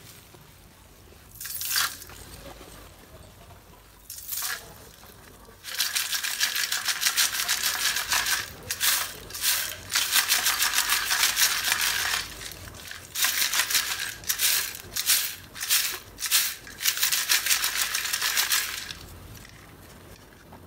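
Broken chunks of roasted multani mitti clay rattling and clinking against the sides of a steel tin as it is lifted and shaken: two short rattles, then a long stretch of rattling in spurts about halfway through.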